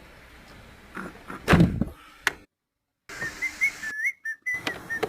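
A few knocks and a heavier thud, then, after a brief dropout, a run of short whistled notes, each bending up and down.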